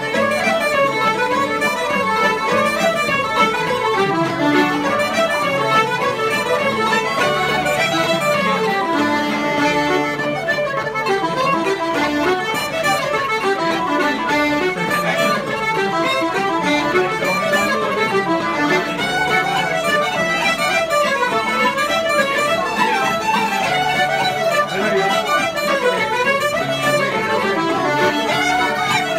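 Irish traditional session music: a wooden flute and a fiddle play a quick tune together in unison, with a guitar strumming the accompaniment. The tune runs on without a break.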